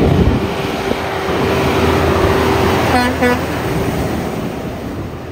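Heavy truck passing close by, with two short horn toots about three seconds in, its noise fading away after them.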